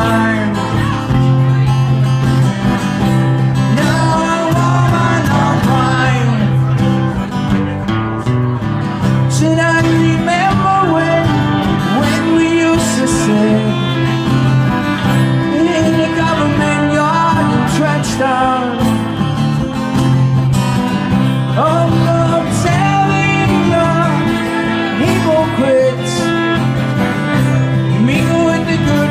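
Live music: a singer over a strummed guitar, with steady held bass notes underneath, in a country-folk style.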